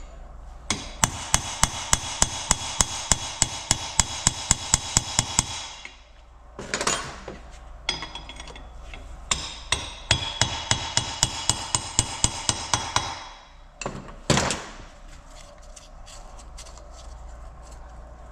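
Rapid metal-on-metal hammer blows with a ringing tone, about four a second, on a seized governor part being knocked back and forth to free it. They come in two runs of several seconds, with a few separate knocks between them and one heavier blow near the end.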